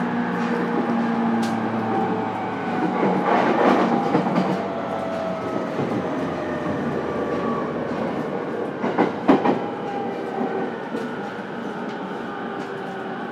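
A JR East E231-series electric commuter train, heard from inside a motor car while running: the traction motors whine in several tones that slowly shift in pitch over the rumble of wheels on rail. There is a burst of clatter about three to four seconds in and a sharp clank from the track about nine seconds in.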